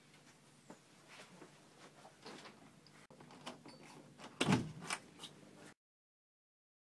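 Household handling noises: scattered small clicks and knocks, then a louder cluster of sharp knocks and a rattle about four and a half seconds in, of the door or cupboard kind. The sound then cuts off suddenly to dead silence.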